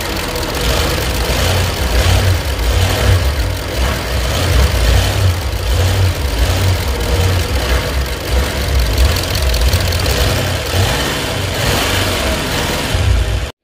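Audi A8 D3's V8 TDI diesel engine running steadily, deep and pulsing in the low notes; the sound cuts off suddenly near the end.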